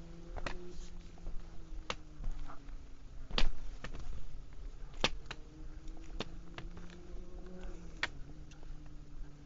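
A hiker's steps and sharp taps on stone paving and rock: irregular clicks roughly a second or so apart, the loudest a little over three seconds in and about five seconds in. Faint low hum and wind rumble underneath.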